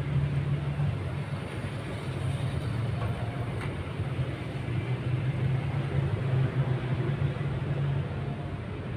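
Car engine idling with a steady low hum, with a faint click from hands working the radiator fittings about four seconds in.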